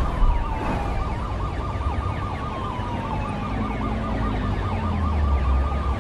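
Siren-like wailing: a wavering tone with repeated slow falling pitch glides, over a low bass hum that swells just past the middle.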